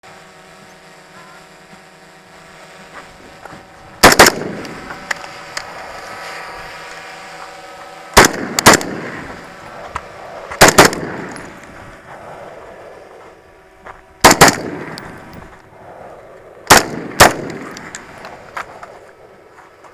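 Gunfire from an M4-style AR-15 carbine: five double taps spaced a few seconds apart, each shot followed by a short echo. A faint steady hum sits underneath.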